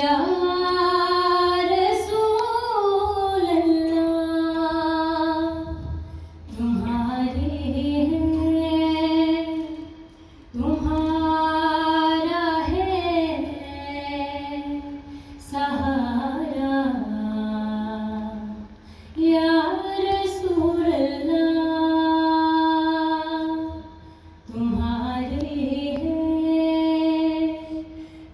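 A woman singing a naat solo and unaccompanied into a microphone, in long held, ornamented phrases with brief breaks between them. A steady low hum runs underneath.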